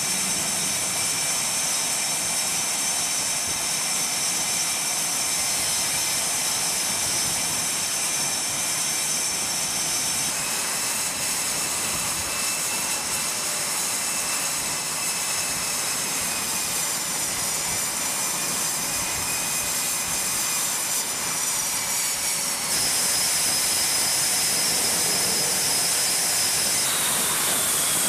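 Jet engines of an F/A-18 Super Hornet running on a carrier flight deck as it is hooked up to the catapult: a steady loud rush with a high whine, stepping louder about 23 s in.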